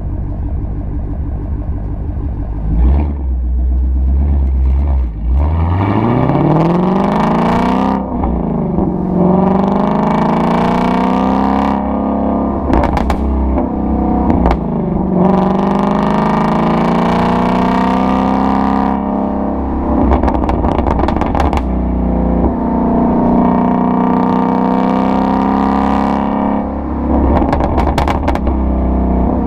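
Ford Mustang Shelby GT350's 5.2-litre flat-plane-crank V8 under hard acceleration. A steady low rumble gives way about five seconds in to engine revs climbing, dropping sharply at two upshifts and climbing again, then settling to a steadier note, with brief crackles from the exhaust.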